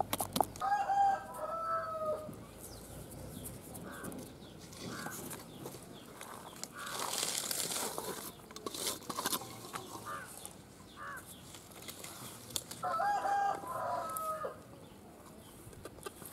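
A rooster crowing twice, once about a second in and again near the end, each crow about a second and a half long. In the middle, a rustle of chopped onion being tipped into a steel bowl.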